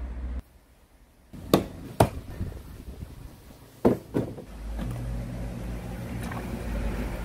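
A few sharp clicks and knocks, then a little under five seconds in the electric pump of a parts-cleaner tub starts and runs with a steady low hum.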